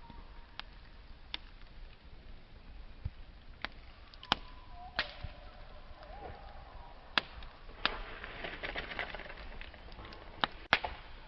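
Wood fire crackling: irregular sharp pops and snaps of burning wood over a soft hiss, the loudest pops near the end.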